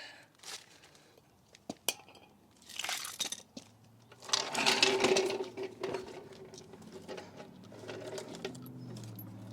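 A handheld power tool runs in short bursts with a rattling buzz, the longest and loudest about halfway through, among scattered clicks and clatter of tools and parts. A low steady hum sets in partway through and continues.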